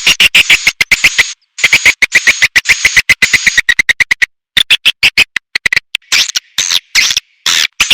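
Swiftlet lure call recording: a fast run of sharp clicks, about ten a second, under bursts of high twittering chirps. It comes in phrases of a few seconds broken by brief pauses. This is the sound played to draw swiftlets into a nesting house.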